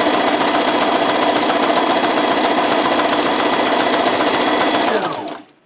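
Brother XL-2250 household sewing machine stitching at a steady speed with an even motor whine. It is a test run after its needle plate was repaired. About five seconds in it slows and stops.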